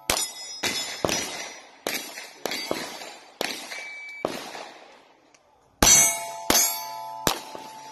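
Pistol shots fired in quick strings at steel plates, each sharp crack followed by the ring of the struck steel. About ten strikes, with a brief lull about five seconds in.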